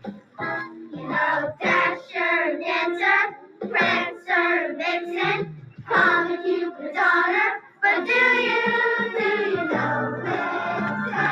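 A song with high singing voices, a child-like vocal carrying sung phrases with held notes and short breaks between lines.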